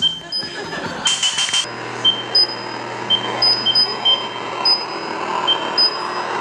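Electronic sounds: short high beeps at two pitches come and go irregularly. A harsh buzzing burst arrives about a second in, then a steady low hum sets in under a hiss.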